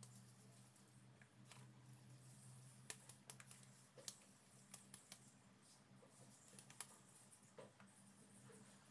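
Near silence: a few faint soft clicks and taps of hands shaping potato dough on a plate, over a faint low steady hum.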